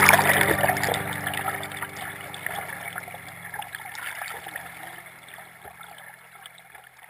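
Water splashing and trickling, with a low steady hum underneath, fading out gradually.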